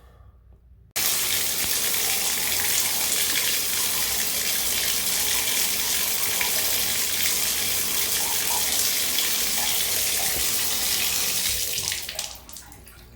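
Bathtub faucet turned on about a second in and running steadily into the tub, then easing off near the end: a leak test of a newly fitted tub waste and overflow.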